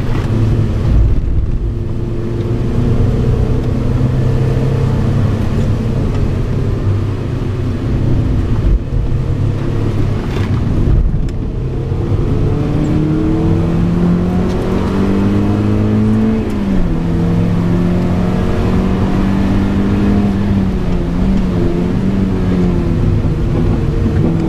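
Mazda MX-5 NB's four-cylinder engine running hard, heard from inside the cabin. The revs hold fairly steady, climb slowly and then drop sharply about two-thirds of the way in.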